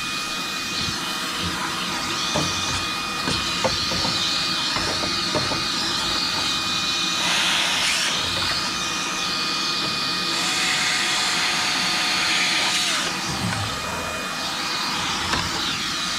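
Cordless electric cleaning tools, a vacuum and an air duster, blowing and sucking dust out of a fan convector heater: a steady motor whine under rushing air. The air rush swells louder briefly about seven seconds in, and again from about ten to thirteen seconds, with a motor tone that steps up and then drops back.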